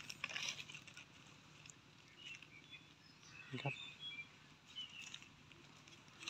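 Faint footsteps crunching and rustling over dry fallen leaves and sandy forest floor, with a few short high bird chirps about three to five seconds in.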